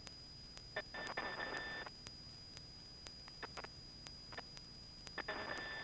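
Faint aircraft radio heard through the intercom: two short bursts of thin, band-limited radio noise with a steady tone in them, one about a second in and one near the end, over low hiss and faint clicks.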